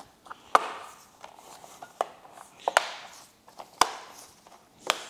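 Plastic backbone cover on a Harley-Davidson touring frame being pressed back into place: five sharp clicks, spaced about a second apart, as its push clips snap home, with soft handling noise between.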